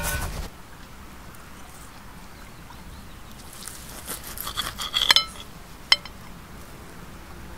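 Steak knife and fork cutting a steak on a stoneware plate: scraping and clinks of the cutlery on the plate about four to five seconds in, then one sharp clink about a second later. A short burst of noise right at the start.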